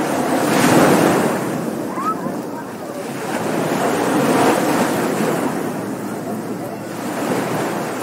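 Ocean surf washing onto a beach, the waves swelling and breaking in three surges about three seconds apart.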